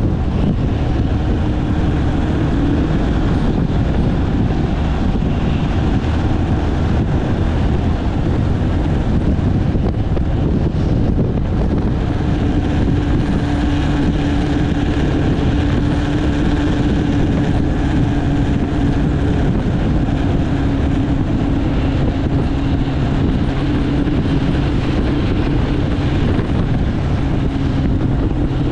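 A road vehicle travelling at speed: a steady engine drone over continuous road noise, the engine's hum a little stronger from about halfway through.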